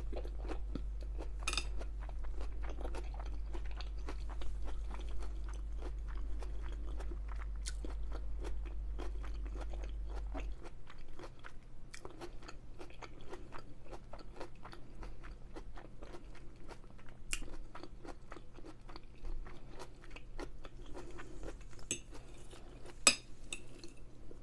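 Close-miked chewing of a mouthful of stuffed pepper, with a steady stream of small wet mouth clicks and soft crunches. A low steady hum underneath cuts off about ten seconds in, and a sharper click comes near the end.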